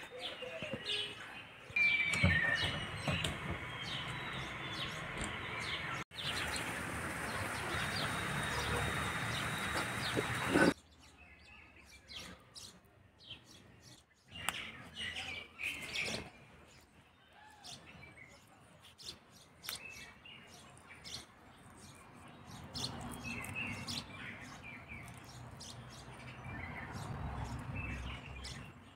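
Small birds chirping and tweeting, with a few seconds of steady rushing noise about a third of the way in.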